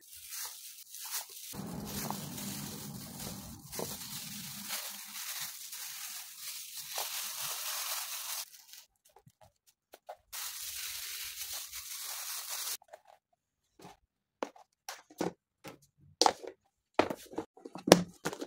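Plastic cling film crinkling and rustling as it is handled, in two long stretches. Near the end come a series of sharp plastic clicks and taps as a lid is pressed onto a plastic food storage container.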